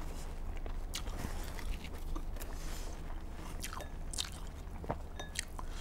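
A person chewing a mouthful of ice-cold watermelon, with many short mouth clicks and smacks.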